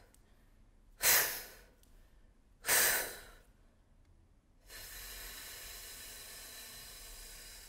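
A woman's breath-support exercise for singers: two short, forceful breaths about a second and a half apart, then, a little under five seconds in, a long steady hissing exhale as the air is slowly pushed out against resistance.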